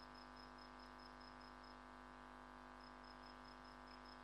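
Near silence: the recording's faint steady electrical hum, with a faint high tone pulsing about four times a second.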